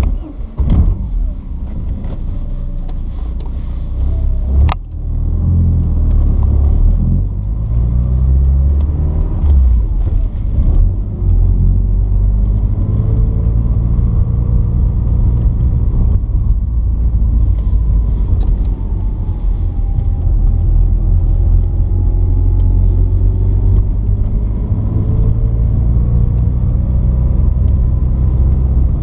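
Porsche 944's 2.5-litre four-cylinder engine catching abruptly and running. Its speed rises and falls for the first ten seconds or so, with a sharp click about five seconds in, then it settles into a steady drone.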